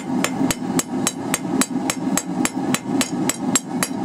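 Blacksmith's hammer striking quarter-inch round steel bar on an anvil in a quick, even rhythm of light blows, about four a second, each with a short bright ring. This is planishing the taper round at a low, near-cold heat to smooth out hammer marks. A steady low hum runs underneath.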